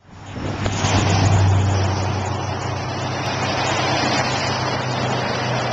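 Road traffic: a motor vehicle's engine and tyre noise with a steady low hum, swelling to its loudest about a second in and then holding steady.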